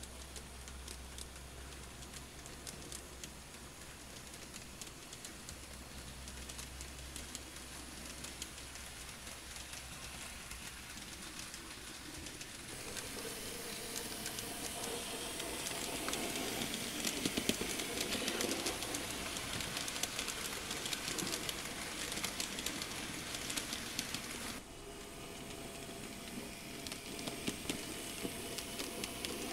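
Model train running on its track: a dense patter of small wheel clicks over the rails with the motor running. It grows louder from about 13 seconds in as the train passes close, and drops back suddenly near 25 seconds.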